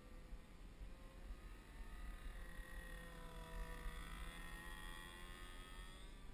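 Evolution GX10 10cc two-stroke petrol engine of a radio-controlled model plane in flight: a faint, distant buzz whose pitch sags and rises again around the middle as the plane passes low.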